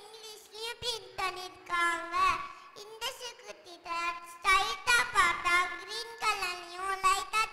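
A young girl singing into a handheld stage microphone, her voice rising and falling in short phrases.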